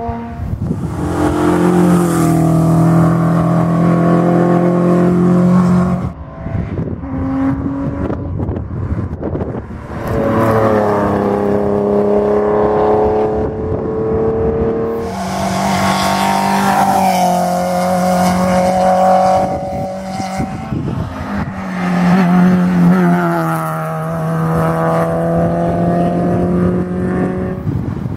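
Rally cars driven hard along a tarmac stage, one after another. Their engines run at high revs, and the pitch holds, then steps down and back up as each car changes gear and passes.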